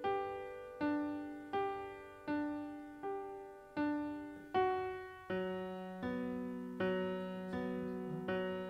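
Background music: slow, gentle piano, single notes struck about once every three-quarters of a second and left to ring away, with a lower note joining and holding underneath about five seconds in.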